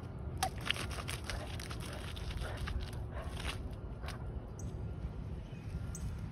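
Australian cattle dog pouncing and pawing in a muddy, water-filled trench: a quick run of wet splashes and slaps for about four seconds, then fewer.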